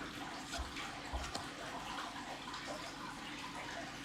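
Soft rustling and light ticks of Magic: The Gathering cards being handled and slid over one another, with two short low thumps in the first second and a half, over a steady faint hiss.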